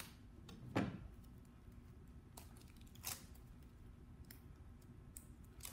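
A few light knocks and clicks of kitchen utensils being handled while powdered peanut butter is measured out, the loudest about a second in and softer ones after, over quiet room tone.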